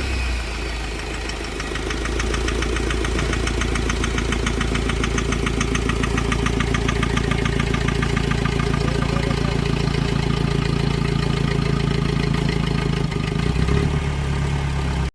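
Mahindra Scorpio mHawk four-cylinder common-rail diesel engine idling steadily, with a rapid, even ticking knock over the engine note. The mechanic ties this knock to the number two cylinder not burning its fuel well when boost is low.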